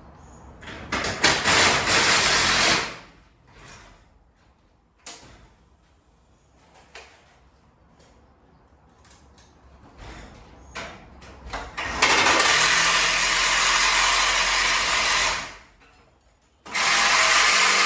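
Impact driver driving screws to fasten garage door top brackets, in bursts: a short run about a second in, a longer run of about three seconds past the middle, and another starting near the end, with quiet handling in between.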